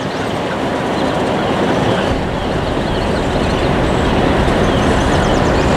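Alco M420 diesel locomotive approaching at low speed, its engine and running noise growing steadily louder as it nears, with the low rumble filling in about two seconds in.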